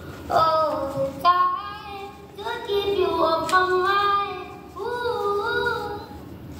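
A child singing unaccompanied, a slow tune of held notes that glide between pitches.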